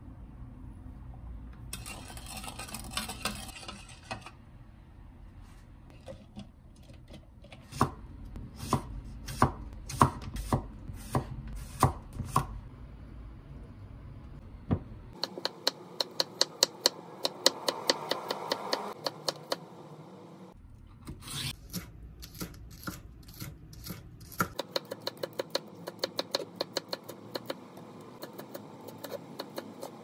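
Kitchen knife chopping food on a cutting board: first slower separate cuts, about two a second, then long runs of fast, rapid chopping.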